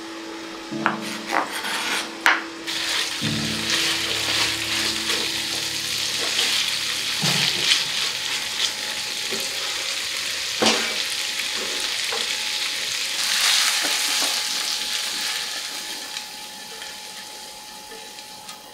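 A knife strikes a wooden cutting board a few times as it dices tomato. Then marinated chicken pieces sizzle in hot oil in a frying pan, with a couple of sharp clacks as they are stirred. The sizzling fades toward the end, over faint background music.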